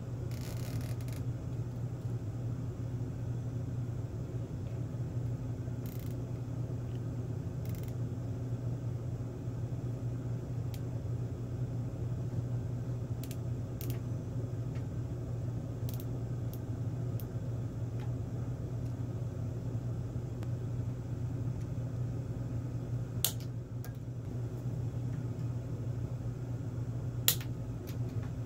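Light scattered clicks and taps of hands fastening a rubber GT2 timing belt to a 3D printer's extruder carriage with a plastic zip tie, over a steady low room hum. The two sharpest clicks come near the end.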